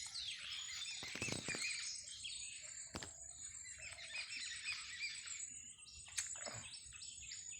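Small birds chirping, with a run of quick repeated short chirps about six seconds in.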